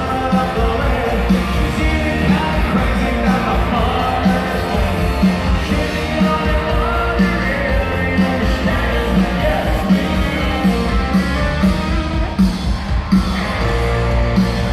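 Live country band playing with singing, loud and echoing through a large arena, over a steady drum beat.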